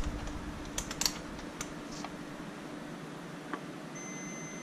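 Light clicks and taps of multimeter test probes touching a circuit board, over a faint low hum. About four seconds in, a steady high beep starts: the meter's continuity beeper, sounding as the probes find a connection.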